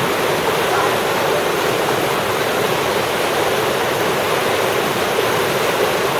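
Fast, swollen river rushing in a steady, loud torrent of water noise.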